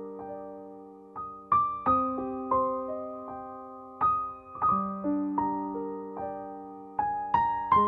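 Background piano music: slow broken chords, each note struck and left to ring as the pattern repeats.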